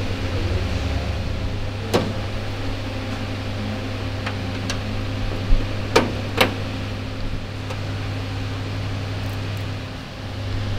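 Sharp metal clicks and knocks of small fasteners and steel body panels being handled while a Steyr 1500A's grille and nose panels are fitted: one about two seconds in and a quick cluster of three around six seconds. Under them runs a steady low hum.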